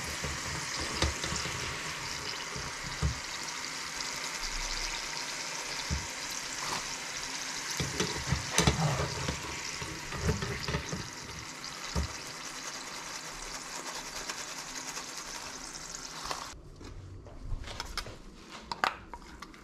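Potato chips deep-frying in a small saucepan of hot oil: a steady sizzle with occasional knocks of the wire mesh strainer against the pan. The sizzle cuts off suddenly near the end, followed by a few clinks of a spoon in a steel bowl.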